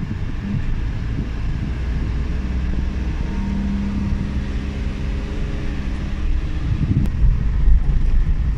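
Suzuki Every Wagon DA17W with its R06A 660 cc three-cylinder turbo engine, heard from inside the cabin while driving: a steady low drone of engine and road noise. A steady hum holds for a few seconds in the middle, and the rumble grows louder near the end.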